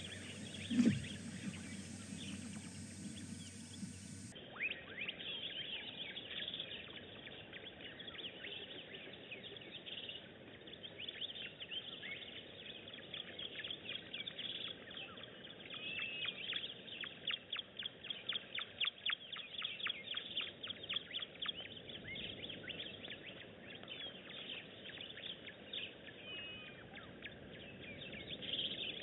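Wild birds chirping and calling in the bush, with a long run of rapid, repeated chirps through the middle and a few separate rising-and-falling calls, over a faint steady outdoor hiss.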